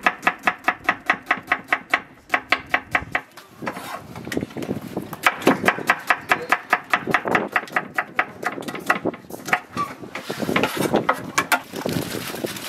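Knife chopping onions on a wooden cutting board: quick, even strokes about five a second, pausing briefly about two seconds in, then resuming. The strokes grow irregular toward the end.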